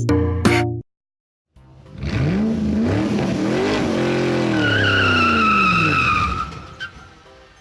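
A short burst of music cuts off, then after a brief silence a car engine revs up and falls away, with tyres squealing through the middle of it.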